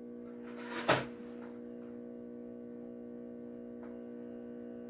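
Motorized display turntable running with a steady electric hum. A short knock about a second in.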